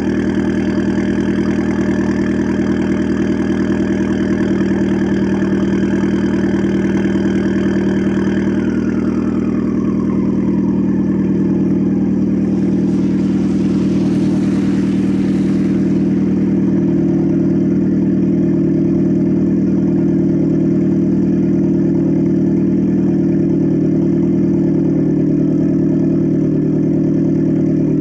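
Alfa Romeo MiTo engine, fitted with a Supersprint exhaust, idling steadily after a cold start. A high whine over the idle falls in pitch about nine seconds in. A brief hiss follows a few seconds later.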